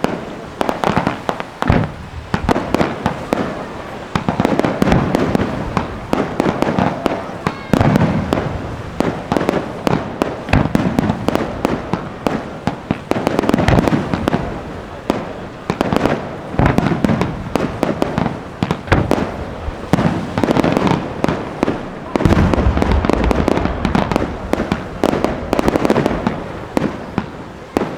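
Aerial fireworks going off in quick succession: many sharp bangs and crackling bursts overlap, with a run of heavier, deeper booms a little before the end.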